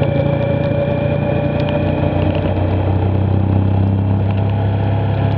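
Motorcycle engine running steadily at road speed, with wind and tyre noise on a wet road. Its note drops a little about three seconds in.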